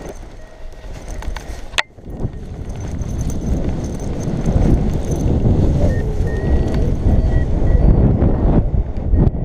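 Wind buffeting the microphone of a harness-mounted camera, building from about two seconds in and staying loud as the paraglider pilot runs and takes off. One sharp click comes just before the wind builds.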